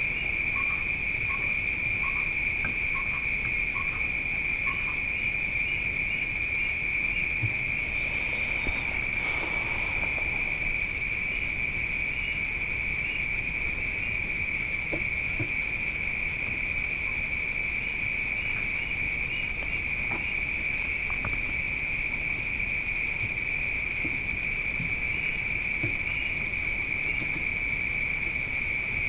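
Steady, unbroken chorus of night insects, typical of crickets, trilling on two high pitches. In the first few seconds a short lower animal call repeats about twice a second.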